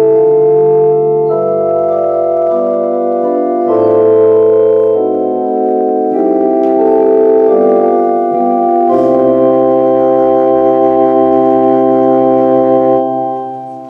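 Organ playing slow, sustained chords that change every second or two, the last chord held and then released near the end.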